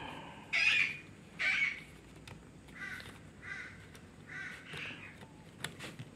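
A bird calling repeatedly: about six short calls spread over several seconds, the first two the loudest. Near the end come a few light clicks of a toner cartridge's plastic end cover being fitted.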